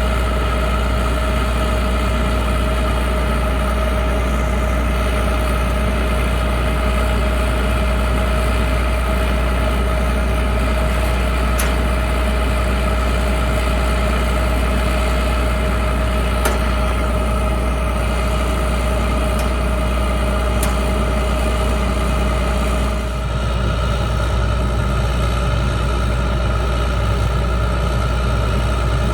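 Large farm diesel engine running steadily at a constant speed: a low drone with a steady whine over it. The tone shifts slightly near the end.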